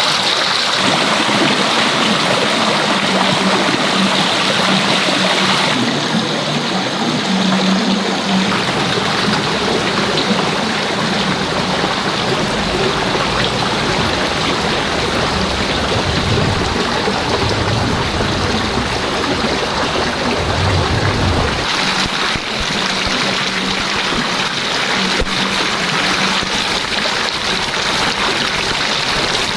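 Steady rushing and trickling of running water, with the sound shifting abruptly about six seconds in and again near the end.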